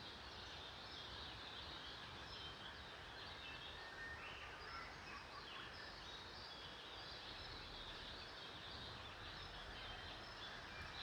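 Faint chorus of birds chirping, with many short high calls scattered throughout, over a steady low background rumble.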